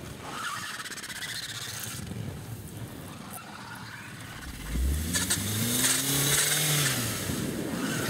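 Suzuki Grand Vitara engine revving as the SUV drives out through deep snow after being stuck on its underbody, with a hiss of snow over the revs. The revs rise about five seconds in, hold, and drop again near the end.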